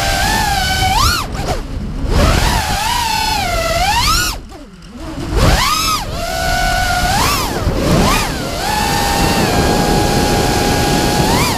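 Brushless motors of an FPV racing quadcopter (Lumenier 2206 2350kv on 5-inch props), heard from its onboard camera. The whine rises and falls with the throttle, drops sharply twice (about two and five seconds in), holds a steady pitch for a few seconds, then rises again near the end, over wind rush.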